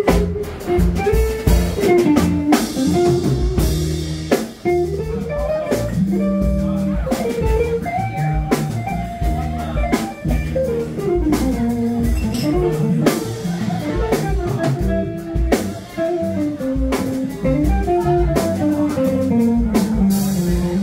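Live band playing an instrumental passage on electric guitar, upright bass and drum kit, with a stepping melodic line over the rhythm.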